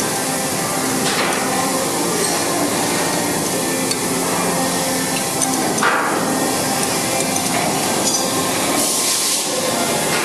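A few sharp metal clinks of a ring spanner on the bolts of a crusher's blade clamping bars, the loudest about six seconds in, over a steady background hum and hiss.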